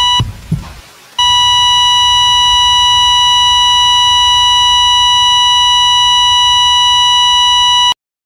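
Heart monitor sound effect: one beep with a couple of low heartbeat thumps, then about a second in a continuous flatline tone, the sign that the patient's heart has stopped. The tone cuts off suddenly near the end.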